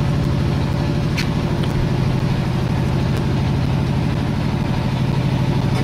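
Fishing boat's engine running steadily, an even low drone with a fast regular pulse, and a short sharp click about a second in.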